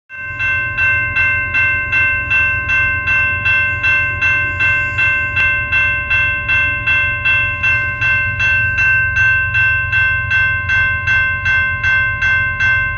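Railroad crossing bell ringing in a steady rhythm of about two strikes a second, the crossing activated for an approaching train. A steady low rumble sits underneath.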